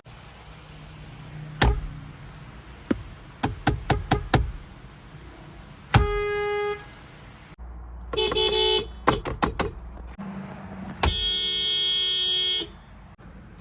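Nissan Rogue car horn sounded in a series of blasts: a short held note, a blast of about a second, two quick toots, then a longer blast of about a second and a half near the end. Several sharp clicks come before the first blast.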